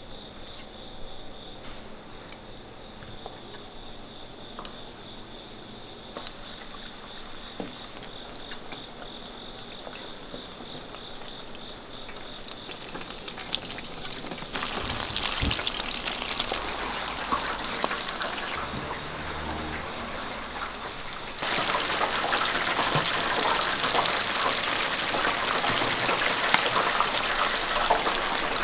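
Batter-coated snail pieces frying in a deep fryer's hot oil, a steady sizzle that grows louder in two steps, about halfway through and again about three-quarters of the way in.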